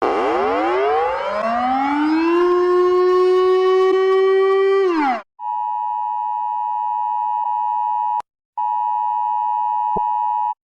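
An emergency siren winds up from a low pitch to a steady wail over about two seconds, holds, and cuts off after about five seconds; then a steady two-tone emergency alert attention tone sounds, broken by a short gap, and stops just before the end.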